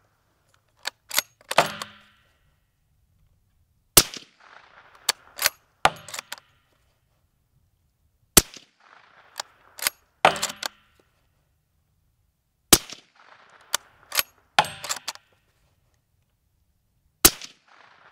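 Bowers 375-suppressed Ruger bolt-action rifle firing four shots about four seconds apart, each a sharp crack with a short ringing tail. After each shot comes a quick run of metallic clicks and clacks as the bolt is worked to eject the case and chamber the next round.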